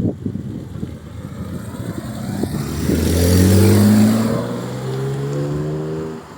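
BMW E30 325i's 2.5-litre straight-six accelerating as the car drives past, its engine note climbing in pitch. It is loudest about four seconds in, with a rush of tyre and wind noise, then falls away as the car moves off.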